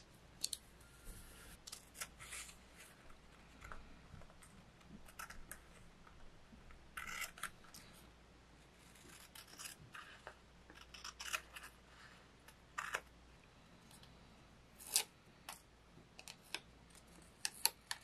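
Scissors snipping paper in irregular short cuts, trimming collage paper along a journal page's edge, with paper rustling and handling between the cuts.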